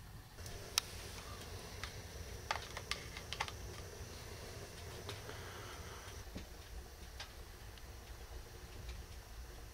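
Sharp plastic clicks of battery-powered LED lights being switched: a wall-mounted LED light switch and a push-on ceiling LED light. The clicks come scattered, the loudest a little under a second in and a quick cluster around the middle, over a low steady rumble.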